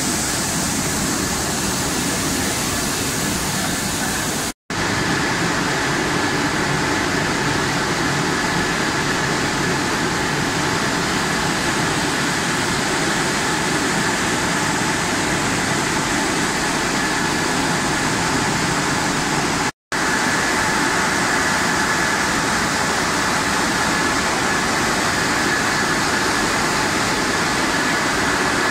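Steady noise of an automatic french fries processing line running: at first water spraying from the washer's nozzles, then the steady hum of the machinery with a thin high whine from the vibrating conveyors. The sound cuts out briefly twice.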